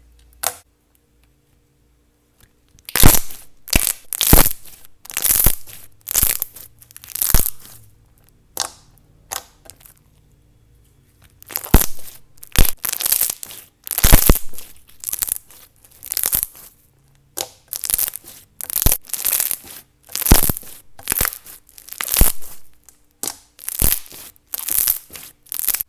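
Non-tacky slime being squeezed and poked, giving loud bubble pops in a steady series of about two a second. The pops start a couple of seconds in and pause for a few seconds partway through.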